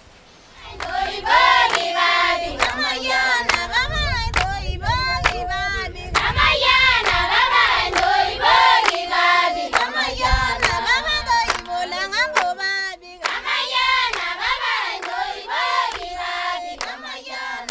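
Choir singing with hand claps keeping a steady beat, starting about a second in.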